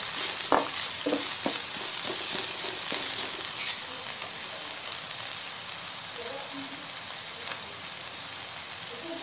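Chopped onion, red bell pepper and green chili sizzling steadily in oil in a grill pan. A wooden spatula knocks and scrapes against the pan a few times in the first second or two while stirring, then only the sizzle goes on.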